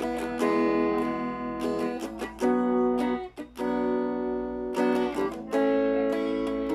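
Thomson Stratocaster electric guitar played through a Laney amplifier: chords strummed and left to ring, changing every second or so, with a brief gap about halfway through.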